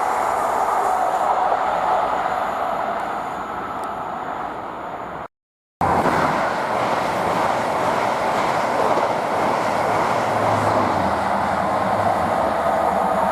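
Train running past close by: a steady, loud rush of wheels on rail. The sound cuts out completely for about half a second around five seconds in, then picks up again.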